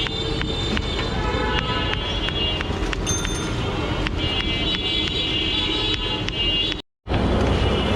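Busy street noise: a steady traffic rumble with horns sounding over it and scattered clicks. The sound cuts out for a moment about seven seconds in.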